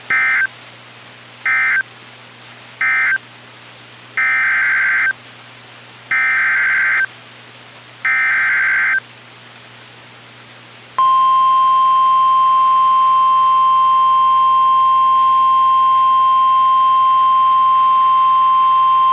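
NOAA Weather Radio Emergency Alert System data tones. First come three short bursts of warbling digital data (the end-of-message code closing the previous warning), then three longer bursts about a second each (the SAME header for the next severe thunderstorm warning). About 11 s in, the steady, loud 1050 Hz weather radio warning alarm tone begins and holds to the end.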